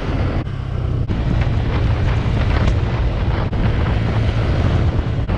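Honda scooter's engine running under way, with wind rushing over the microphone. A steady low hum and hiss, broken by a few very short gaps.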